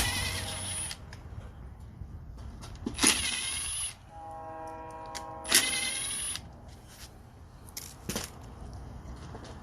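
Recoil starter cord of a Honda lawnmower engine pulled three times, each pull a whirring rasp of about a second, with the engine cranking but not firing: a no-start, here caused by water in the fuel. Between the second and third pulls a steady tone with several pitches sounds, and a couple of sharp clicks come near the end.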